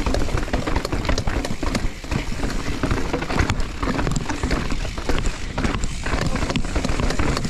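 Mountain bike descending a rough, rocky trail: a continuous clatter of tyres striking rocks and roots, with rapid knocks and rattles from the bike over a steady low rumble.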